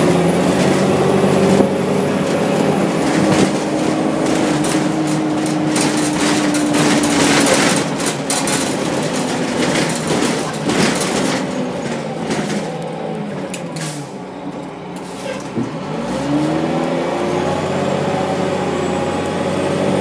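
Orion V transit bus with a Cummins M11 diesel and Allison World B400R automatic transmission under way: the drivetrain pitch slowly falls as the bus eases off, is lowest about three-quarters of the way through, then rises again as it accelerates. Rattles and clatter come through in the middle.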